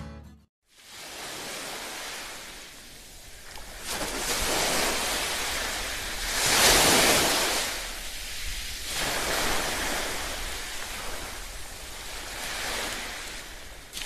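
Sea surf washing on the shore, swelling and falling back about four times, the biggest wave coming about seven seconds in.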